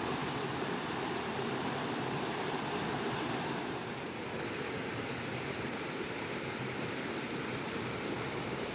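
Steady rush of fast-flowing water, an unbroken roar of noise with no distinct events.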